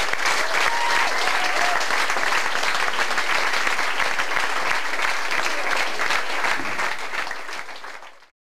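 Audience applauding steadily, the dense clapping fading out near the end.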